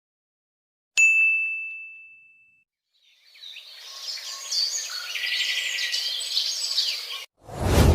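A single bright bell ding that rings out and fades over about a second and a half. Then a few seconds of birds chirping and singing, which cut off suddenly, and a loud sudden low rush right at the end: stock sound effects played one after another.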